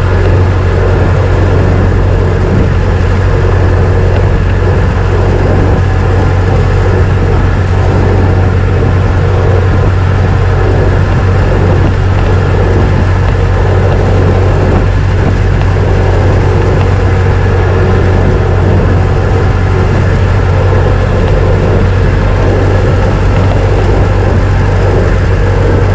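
1926 Ford Model T's four-cylinder engine running steadily as the car is driven, a constant low drone with road and mechanical noise over it.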